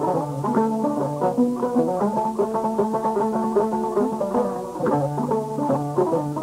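Instrumental music on a plucked string instrument: a quick, continuous run of plucked notes, with no singing.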